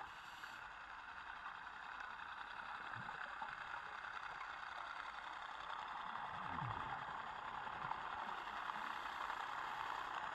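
Steady underwater drone of a distant boat engine, slowly growing louder.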